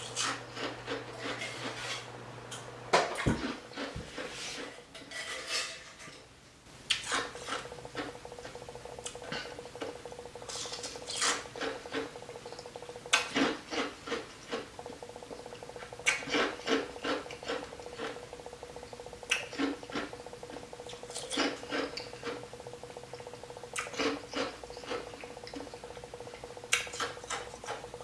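Ice being crunched and chewed in the mouth, with a spoon clinking against a bowl between bites: many short, irregular crunches.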